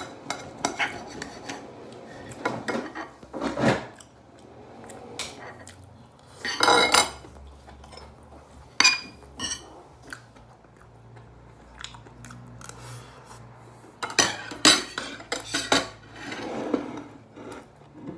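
Metal cutlery clinking and scraping on a dinner plate as a knife and fork cut through grilled meat and a spoon scoops rice. Irregular clinks and scrapes, the loudest a ringing scrape about seven seconds in and a quick run of clinks near the end.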